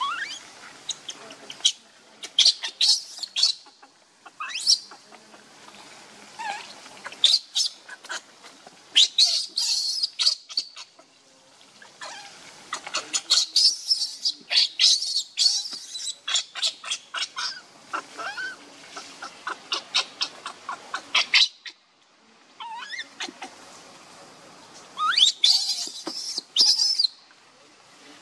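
Newborn macaque squealing and chirping in loud, high-pitched bouts of rapid short calls, with brief pauses between bouts: a baby's distress cries, typical of one that wants to nurse and is being refused.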